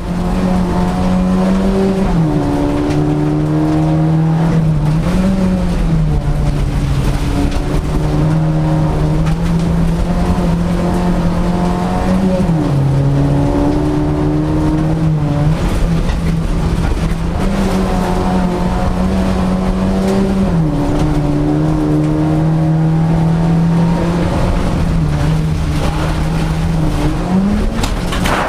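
Renault Clio autocross car's engine running hard at high revs, its pitch dipping and climbing back several times as it shifts gears and lifts for corners.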